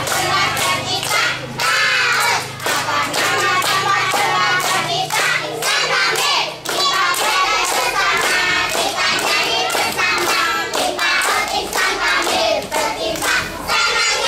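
A group of young children and their teachers singing an action song together, with hand clapping along the way.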